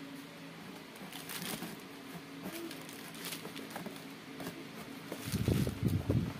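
Clear plastic packing pouch and tape on a cardboard shipping box crinkling and tearing as hands pull at them, with scattered small clicks. Louder rubbing and bumping of hands on the box near the end.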